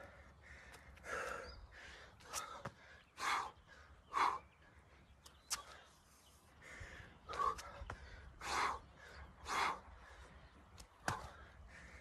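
A man breathing hard in loud, hoarse gasps roughly once a second, with a few sharp clicks in between: heavy panting from exertion at the end of a 30-minute burpee workout.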